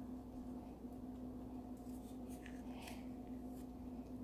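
Faint handling noises: a few light taps and rustles, about halfway through, as hands press Play-Doh onto a paper mat and pick up a plastic Play-Doh tub, over a steady low hum.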